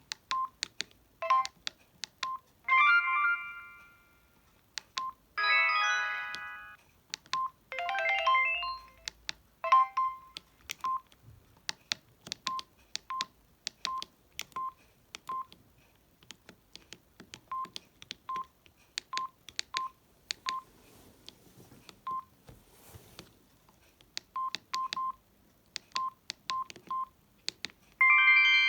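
Samsung SGH-D600 mobile phone playing a series of its short built-in alert tones through its small speaker, about five brief chimes in the first ten seconds. Throughout, its keypad is pressed: each press gives a click with a short beep. For most of the second half there are only these key clicks and beeps, and a louder multi-note tone starts right at the end.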